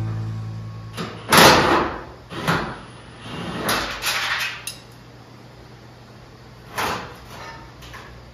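Metal handling sounds at a steel truck fender: a few scraping slides and knocks as hands and tools work at its mounts, the loudest scrape about a second and a half in.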